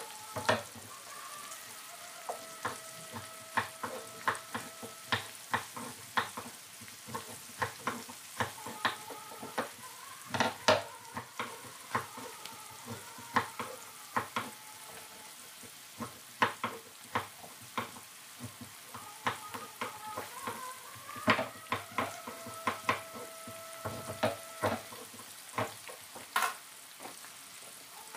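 Eggplant pieces deep-frying in hot oil: a steady sizzle with frequent sharp crackling pops, several a second.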